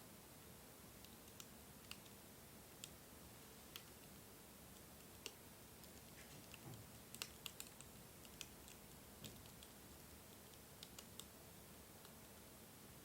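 Wood campfire crackling: sparse, irregular sharp pops and snaps over a faint steady hiss, coming in a quick cluster about halfway through.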